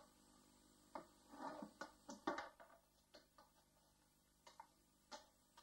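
Faint, scattered knocks and taps, the loudest a little over two seconds in, as a horse noses at a plastic barrel, its lid and a tyre.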